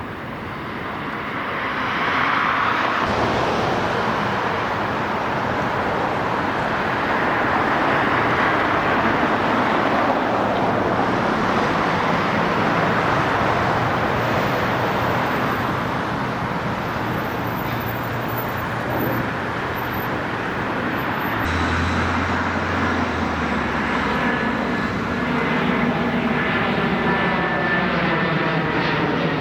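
Steady aircraft engine and rushing-air noise. A sweeping whoosh builds in the last few seconds.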